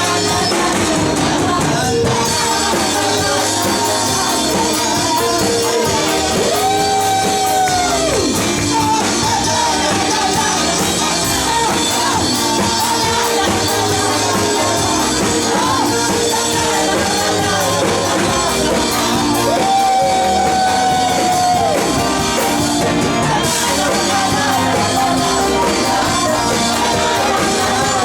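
Live worship music: a band playing while the congregation sings a wordless 'la la la' refrain, with shouts mixed in. Twice a long high note is held and then falls away at its end.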